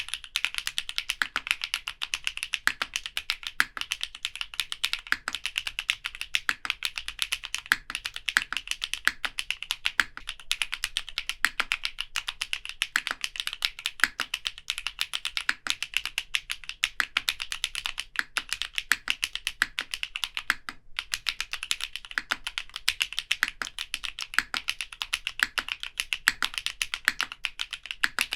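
Fast typing on a Hippo TKL custom mechanical keyboard, a steady stream of keystroke clacks that stops briefly about 21 seconds in.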